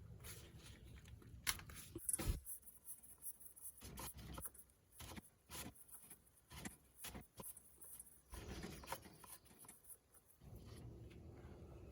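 Scattered light clicks, taps and rubbing of objects being handled by hand, with one sharper knock about two seconds in and patches of low rustling.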